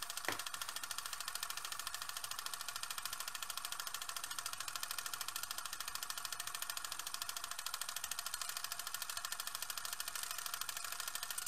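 A steady, rapid mechanical rattle of even ticks, after a single short click at the start.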